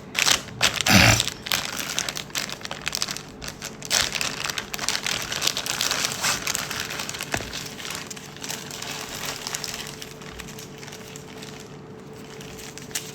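Packaging crinkling and rustling as a parcel is unwrapped and handled by hand, loudest about a second in and dying down near the end.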